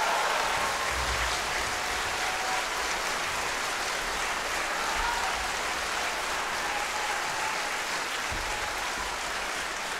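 Concert audience applauding at the end of a performance, steady and easing off a little toward the end.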